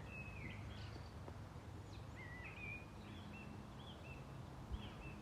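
Birds chirping faintly in a string of short whistled notes, some sliding up or down, over a steady low rumble of outdoor background noise.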